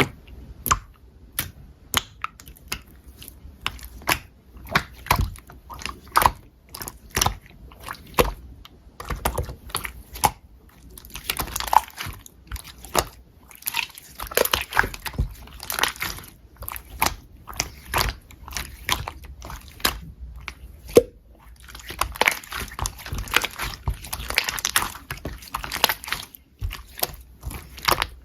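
Clear slime being squished and worked by hand, making a run of sharp, wet clicks and pops. Two longer stretches of dense crackling come around the middle and again near the end.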